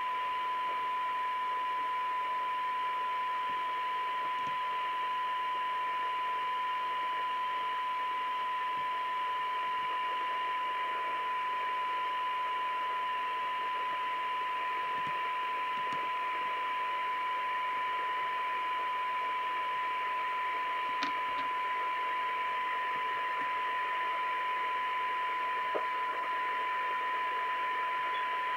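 Cobra UK75ST CB radio's loudspeaker putting out a steady test tone from a signal generator, with a hiss of noise around it. The receiver is picking up a weak test signal while its receive stages are peaked for the most recovered audio.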